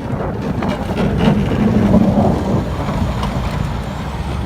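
Blizzard wind gusting over the microphone: a loud, steady rush with heavy low buffeting that rises and falls.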